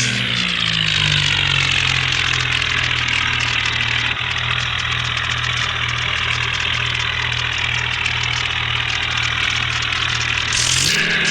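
Bulldozer's diesel engine dropping from a rev to a steady idle, then revving up again near the end.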